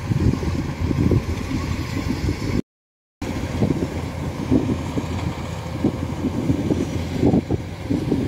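Rice combine harvester running while it cuts a paddy field, heard under uneven wind buffeting on the microphone. The sound cuts out for about half a second around three seconds in.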